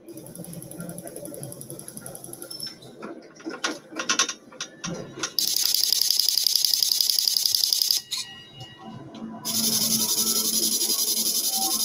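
Mechanical sounds of a greenhouse crop-scouting robot: a run of clicks and ticks, then two long high, fast-pulsing buzzing whirs of a couple of seconds each, the first cutting off suddenly.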